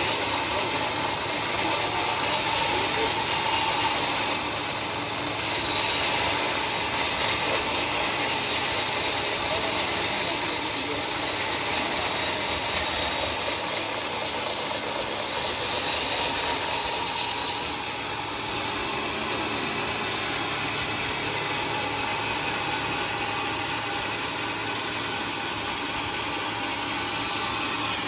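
Homemade bandsaw sawmill cutting through a large teak log: steady motor noise and blade hiss running on without a break.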